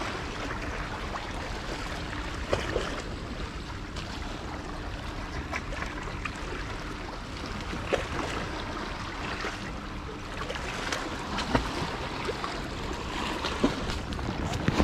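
Sea water washing and lapping against breakwater rocks, a steady wash broken by a few light knocks.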